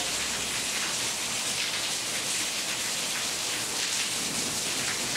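Steady rain falling on a tiled roof and yard.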